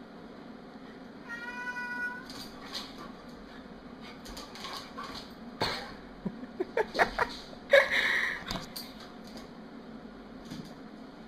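A cat meowing: a short, even-pitched call about a second in, then a flurry of short calls mixed with sharp knocks in the middle, the loudest about two-thirds of the way through.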